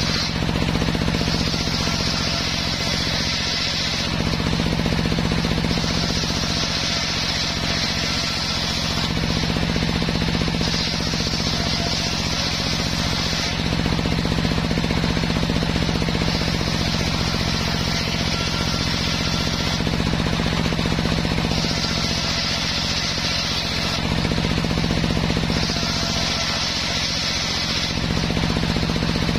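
Homemade bench circular saw ripping waru (sea hibiscus) wood into thin battens: the saw runs with a steady hum, and the higher sound of the blade cutting through the wood comes in about six passes of two to three seconds each.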